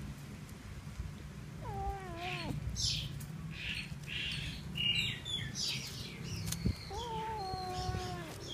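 A kitten meowing twice: a short, wavering call that falls in pitch about two seconds in, and a longer, slightly falling call near the end. Between them come many short, high chirps and squeaks.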